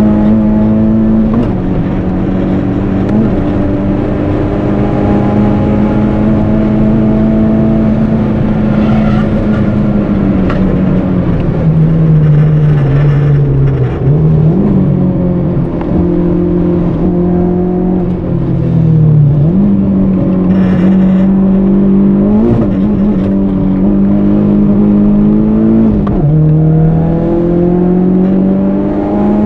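Turbocharged CA18DET four-cylinder of a 1991 Nissan 200SX S13 running hard, heard onboard through its custom 3-inch exhaust. Its pitch holds high, falls away slowly once, and dips sharply and climbs again several times.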